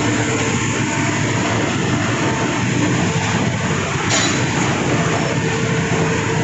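Wagon tippler side arm charger travelling in reverse along its toothed rack: a loud, steady machine running noise with a faint hum under it and a short click about four seconds in.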